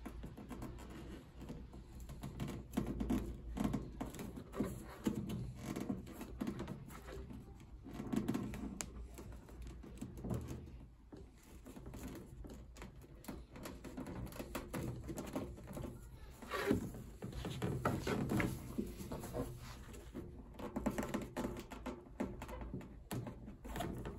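Irregular handling noise: small clicks, taps and rustles of flexible plastic tubing being worked into place on a spin dryer, with a few louder knocks, one of them about two-thirds of the way through.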